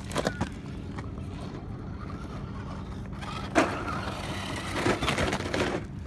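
Axial Deadbolt 1/10-scale electric RC crawler's motor and gears running with a steady low hum as it crawls over logs and rocks. There is a sharp scrape about three and a half seconds in, and more scraping and knocking near the end.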